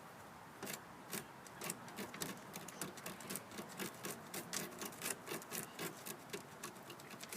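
Irregular scraping and clicking, several strokes a second, of a hand tool working at matted debris wrapped around a lawn mower's drive axle.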